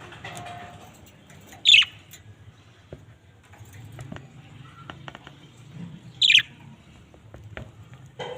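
Budgerigar giving two loud, short, sharp calls about four and a half seconds apart, each falling in pitch, with faint ticks and rustling in between.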